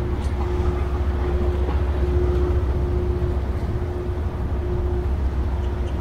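A harbour tugboat's diesel engines running with a steady low rumble as it works alongside a submarine, with a steady hum that fades in and out.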